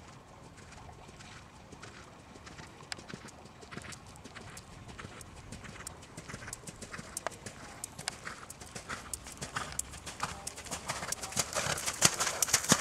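Hoofbeats of a horse trotting on sand arena footing, a steady run of soft thuds and clicks that grows louder as the horse comes close.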